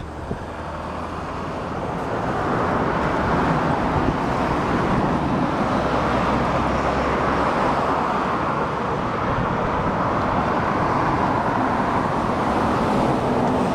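Steady rush of road traffic noise that builds over the first couple of seconds and then holds, with a low hum underneath at times.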